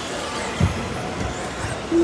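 1/10 scale 2WD electric off-road RC buggies racing, a steady mix of motor and tyre noise. There is a low thump about half a second in and another at the end.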